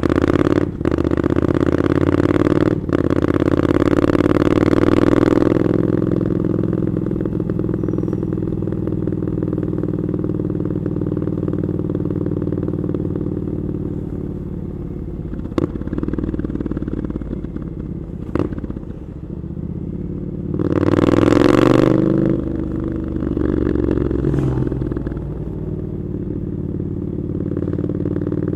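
Triumph Scrambler 900's parallel-twin engine through an Arrow aftermarket exhaust, pulling hard for the first five seconds with two brief cuts in the sound, then running more quietly and steadily. Two sharp clicks come near the middle and a loud surge about three quarters of the way in.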